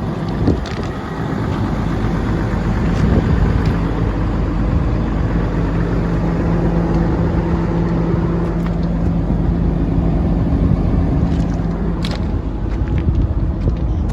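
Volvo EC360CL hydraulic excavator's diesel engine running steadily, a constant low hum that holds one pitch for most of the stretch, with a few light clicks near the end.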